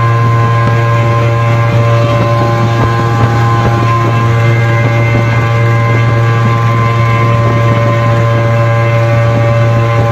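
Suzuki two-stroke engine running flat out at steady high revs, the pitch holding level throughout.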